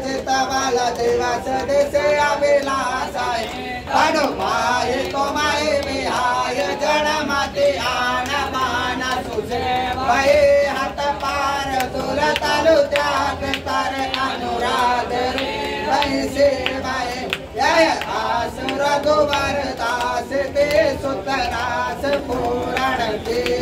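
A group of voices singing a devotional song, a bhajan, with musical accompaniment.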